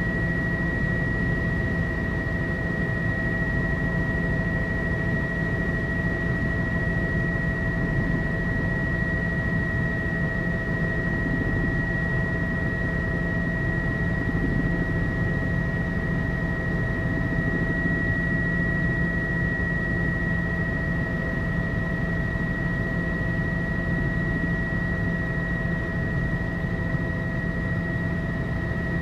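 Tour helicopter in steady cruise, heard from inside the cabin: a constant drone of engine and rotor with a steady high whine over a low hum.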